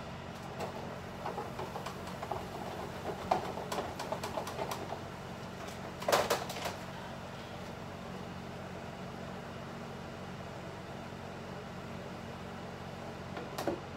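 Kitchen cooking sounds: a steady low appliance hum, with scattered light crackles and knocks at the stove over the first five seconds and one louder clatter about six seconds in.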